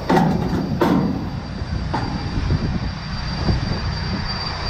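Semi-truck diesel engine running as the rig pulls away, a steady low rumble, with two short loud noises within the first second.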